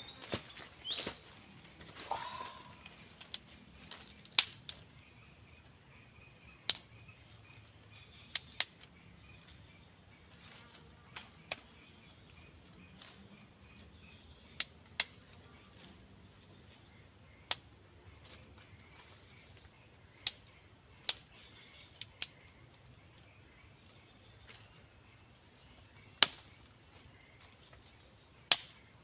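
Insects keep up a steady high-pitched trill, over which dry wood gives sharp, irregular snaps and cracks every second or few as the firewood for a grilling fire is broken and set alight.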